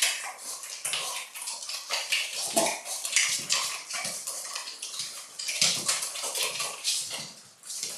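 Xoloitzcuintli puppies suckling at their mother: rapid, continuous wet smacking and slurping, with a few short vocal sounds from the puppies.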